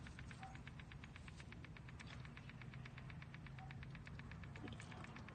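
Faint steady electrical hum with rapid, even ticking, about eight ticks a second, from a PEMF (pulsed electromagnetic field) therapy device pulsing.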